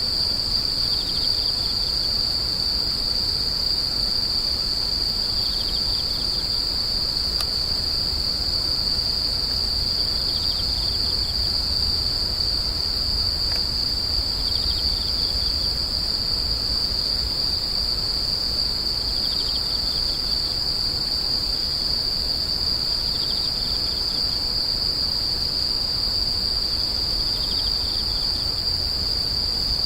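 Chorus of crickets: a steady, unbroken high-pitched trill, with a second, slightly lower call repeating about every four to five seconds.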